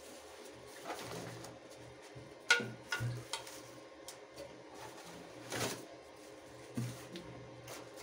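Packaging being handled: plastic wrap crinkling and cardboard box rustling, with several light knocks as plastic-wrapped hand blender parts are set down on a table, the sharpest about two and a half seconds in. A faint steady hum sits underneath.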